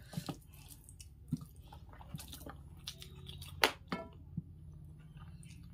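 Fingers mixing and pressing cooked rice on a steel plate: soft wet squishes and scattered small clicks, with one sharper click about three and a half seconds in, alongside chewing.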